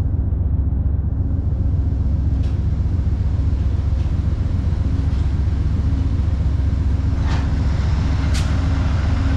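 Diesel locomotives of a stopped Amtrak train, a GE P42DC and a Siemens ALC-42, idling with a steady low rumble and a faint hum that comes and goes. Two short clicks near the end.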